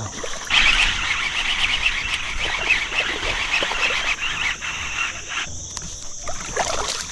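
Water splashing and rushing for about five seconds, starting half a second in, over a steady high drone of crickets.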